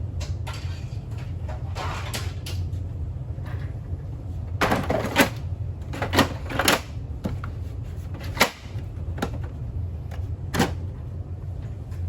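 Several sharp clicks and clattering knocks, like parts and tools being handled while a coffee machine is taken apart, over a steady low hum. The clicks come in a cluster about five seconds in, then singly every second or two.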